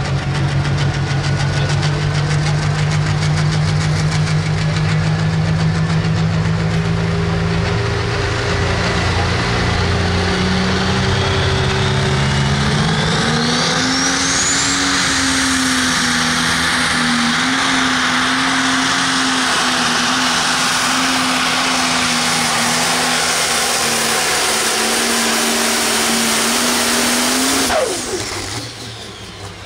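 Pro stock pulling tractor's turbocharged diesel engine at full throttle under load. Its pitch climbs about halfway through and is held high, with a rising turbo whistle, then it cuts off suddenly near the end as the pull ends.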